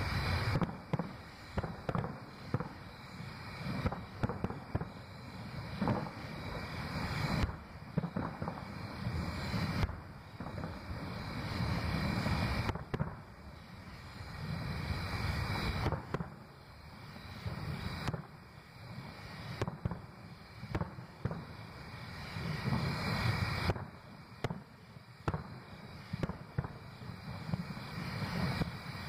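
Aerial fireworks shells bursting in a rapid, irregular string of loud booms over a low rumble.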